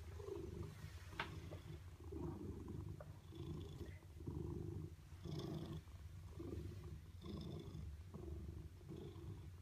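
Domestic cat purring close up, the purr swelling and easing about once a second with each breath. A single short click sounds about a second in.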